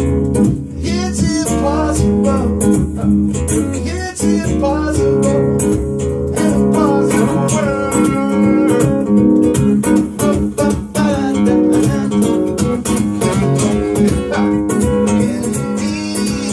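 Acoustic guitar strummed in a steady rhythm as a song's accompaniment, with a singing voice at times.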